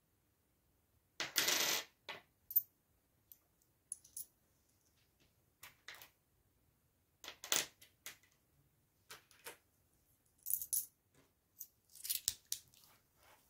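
Euro coins clinking as they are sorted out of a palm by hand: a longer rattle of coins about a second in, then scattered single clinks, some with a bright metallic ring.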